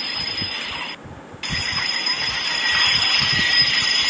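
Several car alarms sounding at once, high steady and warbling tones layered together over wind and handling noise on the microphone. The high tones cut out for about half a second about a second in.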